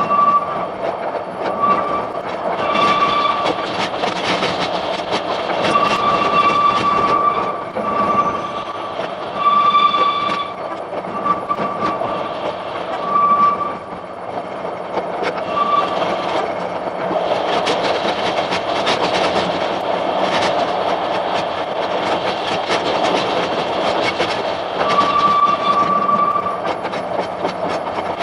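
Oigawa Railway Ikawa Line passenger coach Kuha 604 running along the mountain track, its wheels rumbling and rattling, with a high wheel squeal that comes and goes in short stretches many times over, typical of flanges grinding on tight curves.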